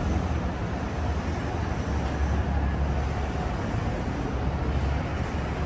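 City street traffic noise: a steady mix of passing vehicles with a low rumble.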